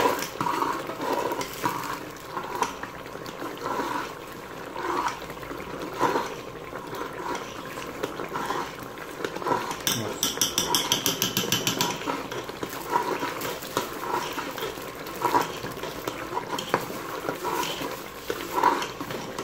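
A metal spoon stirs and scrapes thick chicken curry in an aluminium pressure-cooker pot, with repeated clinks and scrapes against the pot. About ten seconds in, a fast high-pitched rattle runs for about two seconds.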